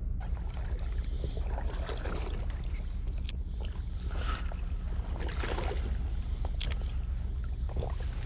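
Steady low rumble of wind on the microphone, with rustling handling noise from the rod and reel coming and going, and two sharp clicks, about three and six and a half seconds in.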